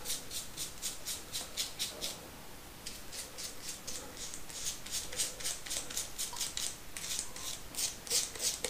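Razor scraping through lathered stubble in quick short strokes, about five a second, with a brief pause about two seconds in.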